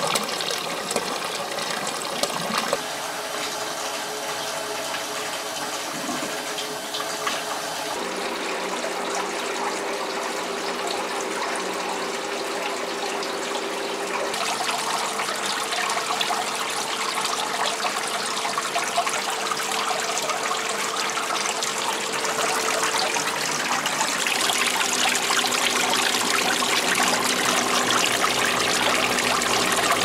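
Water pouring through a PVC pipe into a plastic tote, a steady running and splashing. The sound shifts abruptly a few times.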